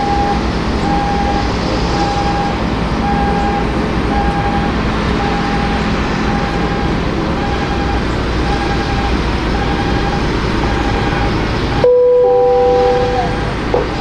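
Steady roar of a Boeing 787-8 airliner on the apron during pushback, with a short warning beep repeating about one and a half times a second. About twelve seconds in the roar cuts off abruptly and a two-tone chime sounds.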